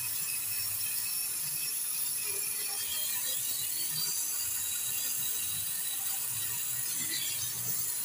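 Brazing torch flame hissing steadily.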